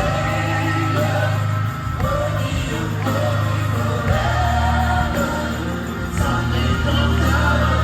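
Music with singing voices over long held bass notes.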